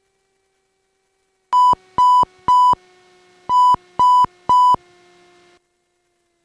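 Electronic alert tone beeping through the aircraft intercom during the landing roll: six loud, short beeps of one pitch in two sets of three, about half a second apart, over a faint steady hum.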